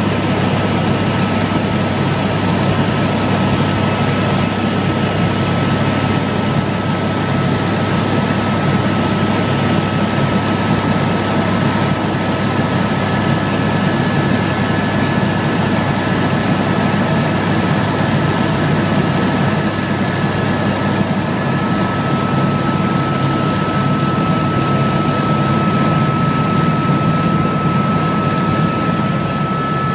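Helicopter cabin noise in flight: the steady drone of the rotor and engine heard from inside the cabin, with a thin, steady high whine over it.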